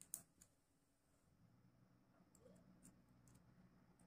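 Small sharp clicks of a flathead screwdriver prying at a steel USB flash drive's casing: one distinct click just after the start, a softer one right after, then a few faint ticks in the second half.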